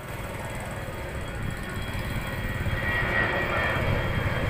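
Jet airliner's engines at takeoff power as it climbs out after takeoff: a deep rumble with a faint high whine, growing steadily louder.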